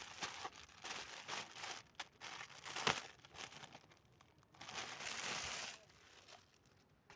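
Courier packaging crinkling and being torn open by hand: irregular crackles, a sharp crack about three seconds in, then a longer tearing rasp a little after the middle.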